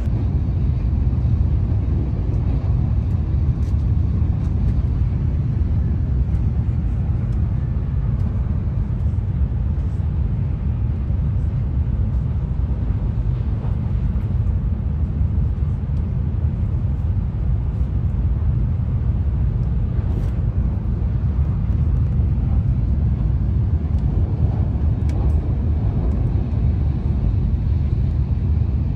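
Steady low rumble of an N700A Shinkansen running, heard inside the passenger cabin, with a few faint clicks.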